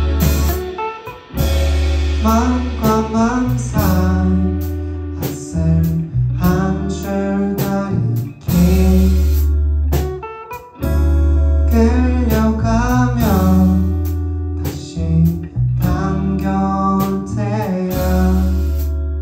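A live band playing an indie pop song: a heavy electric bass line with electric guitar and drums, and a man singing the melody.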